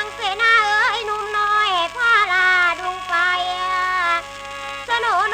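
Mor lam singing: one voice in long, wavering, ornamented lines over the steady drone of a khaen (bamboo free-reed mouth organ), played from an old 78 rpm shellac record. The voice drops out briefly near the end and comes back in.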